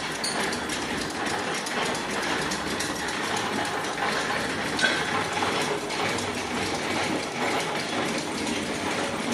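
Cigarette-making machinery running: a steady, dense mechanical clatter of many fast small clicks, with one sharper click about halfway through.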